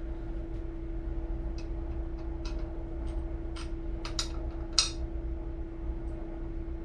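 A steady low hum with scattered light clicks and knocks, the sharpest about five seconds in.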